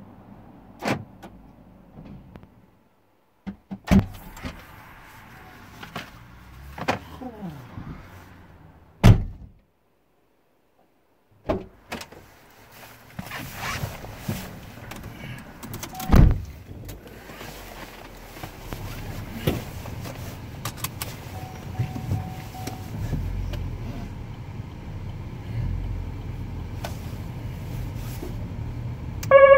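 Inside an Opel Corsa's cabin: scattered knocks and thunks, then the engine running low and steady as the car pulls away. A siren starts right at the very end.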